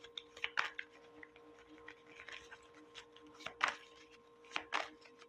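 A deck of playing cards being shuffled by hand, giving irregular soft snaps and flicks of card on card several times a second, with a faint steady hum underneath.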